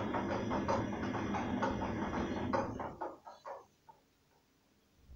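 Arçelik 3340SJ front-loading washing machine's drum turning a wet, sudsy load, with quick irregular sloshing and thuds over the motor, then slowing and stopping about three seconds in: the usual rest between the drum's turns in a wash cycle.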